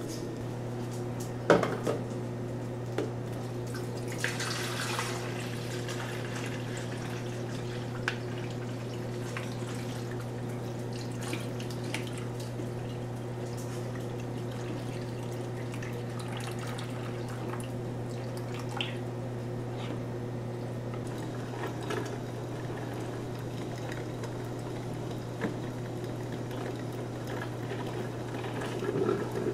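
A Black+Decker drip coffee maker being filled and started: water is poured from the glass carafe into its reservoir, and there are clicks and clatter of the lid and carafe, with water trickling. A steady low hum runs under it all.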